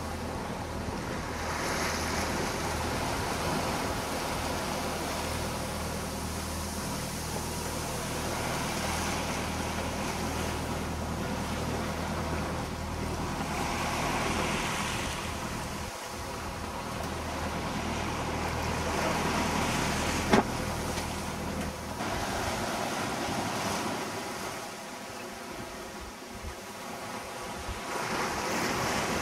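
Wind and rushing sea on a yacht under sail, with wind buffeting the microphone and the wash surging and easing. A steady low hum runs under it and stops about three-quarters of the way through, and there is a single sharp click shortly before that.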